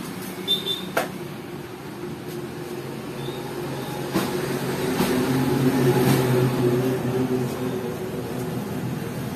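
Bajaj Pulsar NS125's single-cylinder engine running steadily, with a few sharp clicks near the start and again around four to five seconds in. It grows louder for a couple of seconds past the middle, then settles back.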